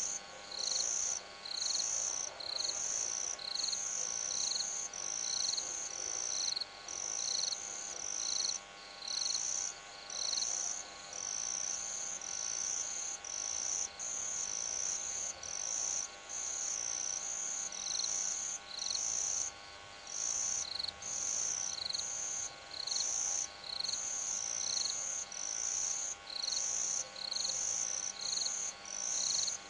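Night insects, cricket-like, chirping: a high-pitched chirp repeated evenly about once a second, over a faint steady hum.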